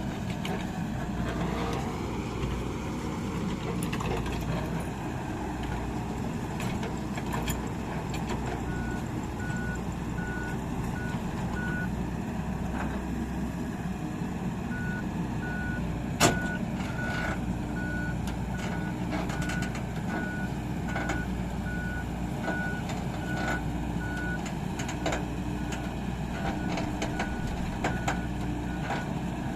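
Heavy machinery's diesel engine running steadily while a reversing alarm beeps at an even rate, starting about nine seconds in and pausing briefly before resuming. A single sharp knock sounds about halfway through.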